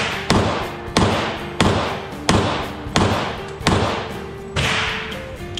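Springfield Armory mil-spec 1911 pistol firing .45 ACP in a steady string of about seven shots, roughly one every 0.7 seconds, each shot echoing in an indoor range.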